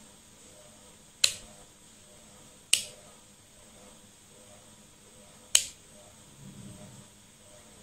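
Rotary function selector switch of a Sanwa CD800a digital multimeter clicking as it is turned between ranges: three sharp clicks, the second about a second and a half after the first and the third about three seconds later.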